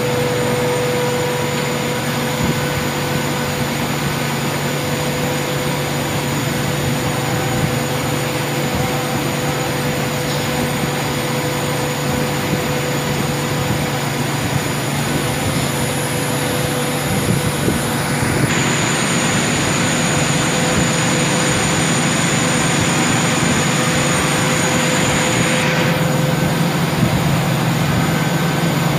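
Steady industrial machinery noise, the pumps and motors of a running reverse-osmosis water plant, with a low hum and a few faint steady whines. For about seven seconds, about two-thirds of the way in, a higher hiss joins on top.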